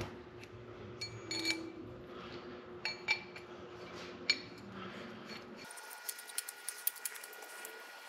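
Steel rifle barrel and bolt-action receiver clinking and tapping together as the cut-down barrel is fitted to the action. A few short, ringing metal clinks, then a run of quick, light ticks near the end.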